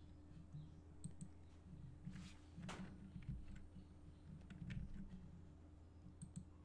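A few faint, scattered computer mouse and keyboard clicks, with a brief rustle about two and a half seconds in, over a low steady electrical hum.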